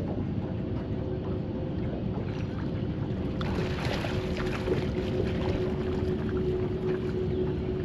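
A boat motor running steadily with a constant hum, over water and wind noise. About three and a half seconds in, a louder hiss joins it.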